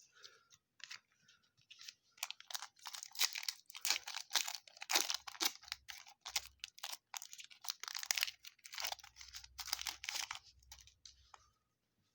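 Crinkly foil wrapper of a Topps Fire baseball card pack being torn open and handled: a run of irregular crackles and tears that stops near the end.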